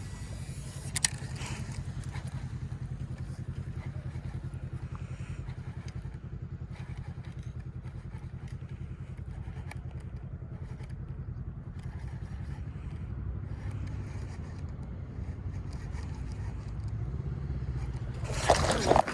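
A motor running steadily with a low hum, with a single click about a second in.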